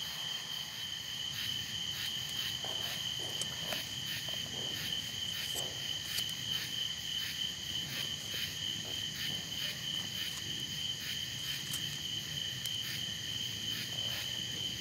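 Night chorus of crickets: a steady, high, finely pulsing chirring.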